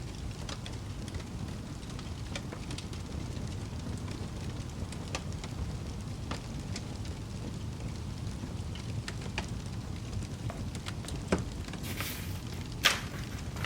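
Wood fire burning in a fireplace: a steady low rumble with scattered crackles and pops. A brief rustle and a sharper, louder pop come near the end.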